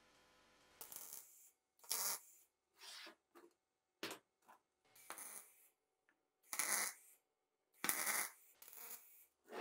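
A series of about a dozen short scraping and rubbing strokes, irregularly spaced and each cutting off to silence.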